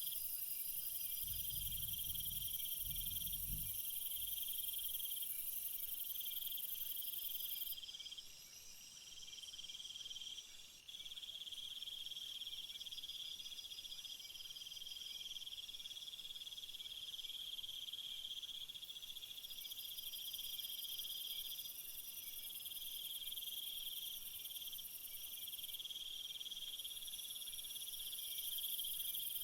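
A chorus of crickets and other insects trilling, several overlapping calls, one pulsing in stretches of a second or two and a very high shrill layer that drops away for several seconds partway through. A brief low rumble sounds underneath about two seconds in.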